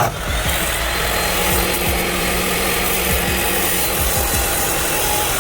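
A power tool cutting through a piece of metal, a loud, steady, harsh grinding noise that does not let up.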